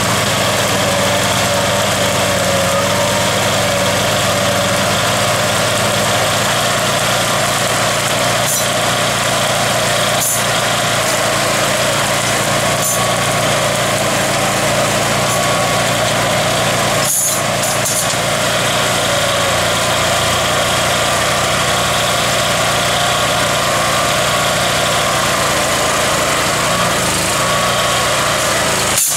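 Small gasoline engine powering a hydraulic pile-hammer rig, running steadily, with a few sharp knocks scattered through.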